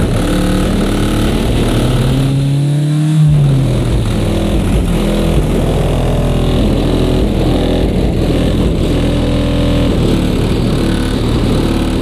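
Loud, bass-heavy music played through a car audio system's two Digital Designs 9515 subwoofers, with a deep note that glides up and then back down about three seconds in.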